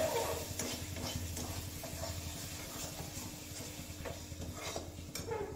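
Metal spatula stirring and scraping a thick masala paste frying in an aluminium kadhai, with a low sizzle and scattered scrapes and clinks against the pan.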